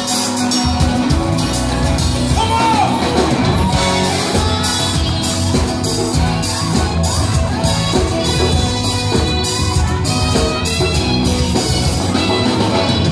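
A live band playing pop-rock, with guitars, drums and saxophone, and voices singing and shouting over the music.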